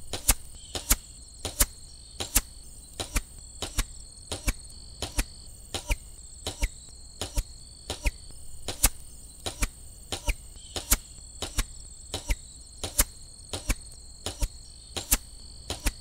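Arrows flying past a shotgun microphone as a run of short, sharp passes, one to two a second, played back to back: a fixed-blade-broadhead arrow, a fletched arrow and a bare Easton Axis 260 shaft, then groups of the three. Insects chirr steadily in the field behind.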